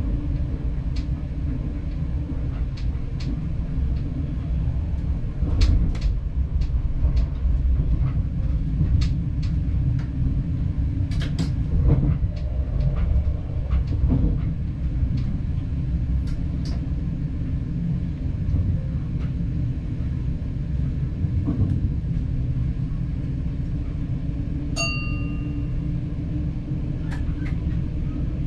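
Regional train running along the line, heard from inside the driver's cab: a steady low rumble of wheels on track with scattered clicks and clinks. About 25 seconds in, a short high electronic beep sounds.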